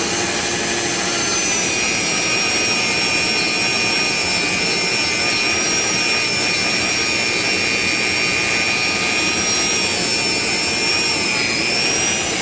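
Dremel rotary tool spinning a polishing wheel against the steel parts of a .22 revolver: a steady high whine over a hiss, its pitch dipping briefly near the end.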